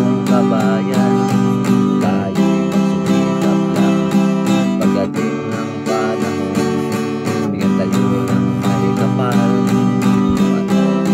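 Acoustic guitar strummed in a steady rhythm, chords ringing with a few strokes a second.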